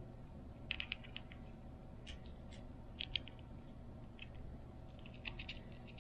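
Small clicks and light taps of Tillotson HR76A carburetor parts handled in the fingers as the pump cover, gasket and screws are fitted together, coming in several short clusters over a low steady hum.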